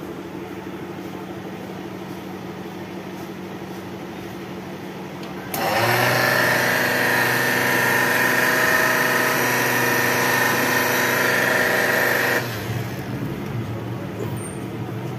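Nescafé tea-coffee vending machine running a tea dispense cycle as a test after servicing: a steady low hum, then about five seconds in its motors start with a loud, steady whine while hot water pours into the tea mixing bowl, stopping about seven seconds later and leaving the hum.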